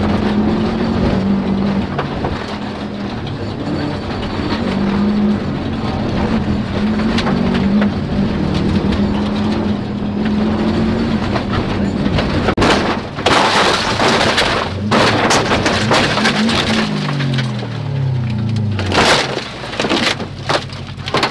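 Rally car engine running hard inside the cabin, its pitch stepping up and down through gear changes. About twelve and a half seconds in, loud crashing and scraping noise takes over as the car goes off the road and crashes, with the engine note falling away and another heavy impact near the end.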